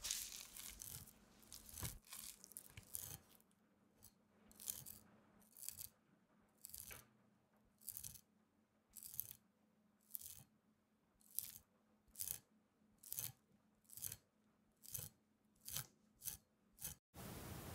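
Chef's knife scoring the skin of raw duck breasts on a bamboo cutting board: a series of short scraping cuts about one a second, coming a little faster near the end. Before the cuts, hands rustle and handle the raw meat.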